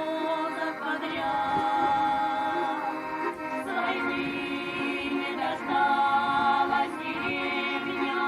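Music: a choir singing long held notes that change every second or two.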